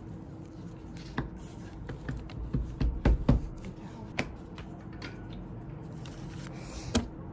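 Hands working air-dry paper clay on a tabletop: scattered light taps and knocks, with a cluster of heavier thumps about three seconds in and one sharp knock near the end.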